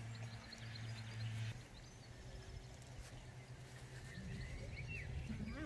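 Quiet open-air background on a meadow: a steady low hum for about the first second and a half, then faint, scattered short high chirps.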